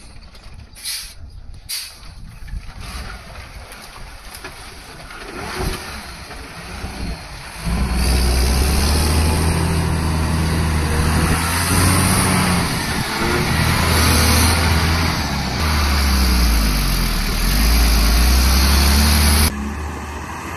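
Tata 10-wheeler truck's diesel engine labouring under load as it climbs with an excavator on its flatbed, loud and close from about 8 seconds in, its pitch dipping and rising with the throttle. Before that it is quieter, with a few knocks at the start, and the sound cuts off suddenly near the end.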